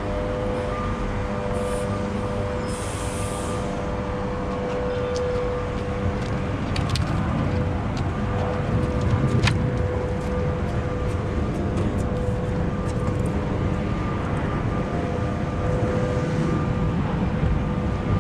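Street traffic and running vehicle engines: a continuous rumble with a steady hum, and a few sharp clicks about seven and nine and a half seconds in.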